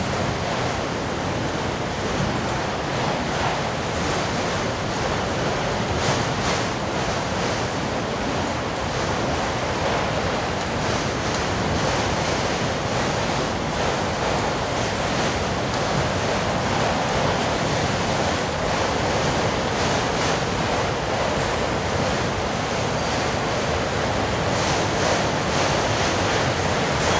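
Autorack freight cars rolling past: a steady rush of steel wheels on rail.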